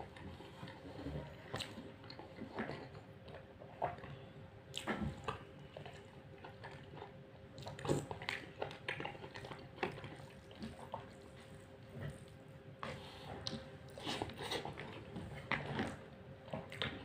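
A person eating chicken biryani by hand: chewing and mouth sounds with scattered small clicks and rustles, over a faint steady hum.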